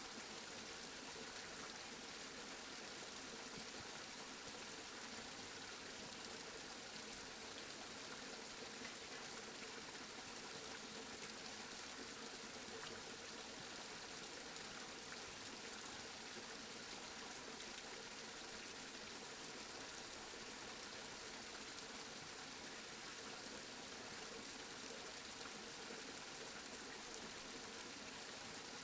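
Steady rain, an even hiss of falling drops with no distinct events.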